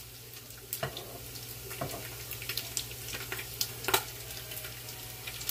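Bacon sizzling in its grease in a Ninja Foodi Possible Cooker Pro: a steady hiss with scattered sharp pops and clicks.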